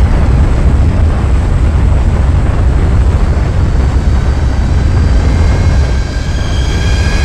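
Airplane engines and rushing wind, a loud steady rumble. From about four seconds in, held high musical tones build up over it.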